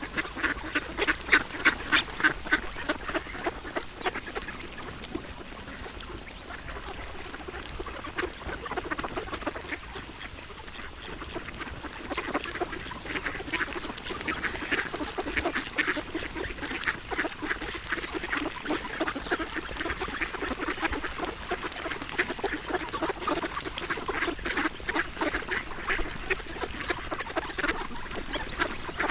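Ducks quacking while being fed: a rapid, continuous run of short calls, loudest in the first few seconds.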